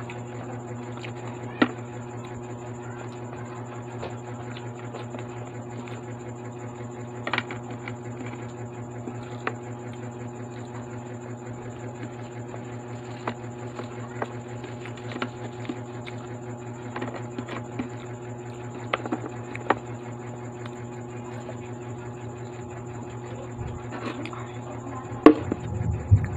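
Eating sounds from a person chewing french fries and handling food, with scattered soft clicks and taps over a steady background hum.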